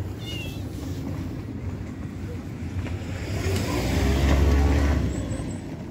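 A motor vehicle passing by: its engine and road noise build up, are loudest about four to five seconds in, then fade away.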